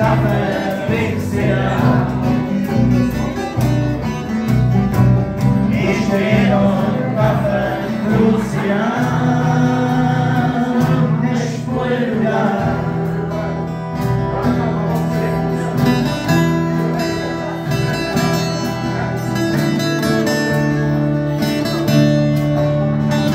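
Acoustic guitars strummed over a bass guitar line, playing a Czech tramp-style folk song; a wavering melody line sits over the chords in the first half, and the second half is steady strumming.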